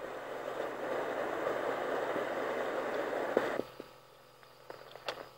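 Steady hiss-like noise that cuts off suddenly about three and a half seconds in, followed by a few faint clicks.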